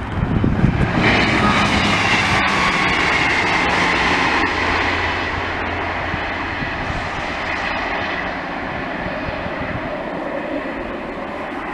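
Class 158 diesel multiple unit passing close at speed, then running away: a sudden rush of engine and wheel noise, followed by a drawn-out falling whine that slowly fades.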